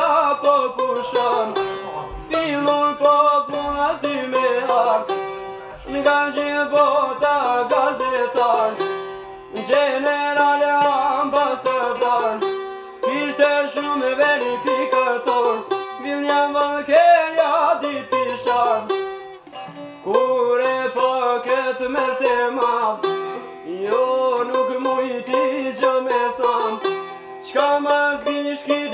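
Çifteli and sharki, Albanian long-necked lutes, playing a fast-plucked folk melody in phrases of three to four seconds, with short dips between phrases.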